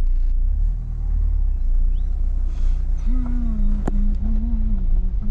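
Ford EcoSport driving slowly over a rough dirt track, heard inside the cabin: a steady low rumble of engine and road. About three seconds in a steady low hum joins it, and there is one sharp click just before the fourth second.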